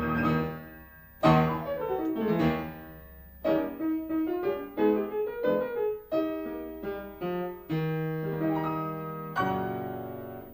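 Piano music: a run of struck chords and quick rising and falling runs, ending on a chord that fades away near the end.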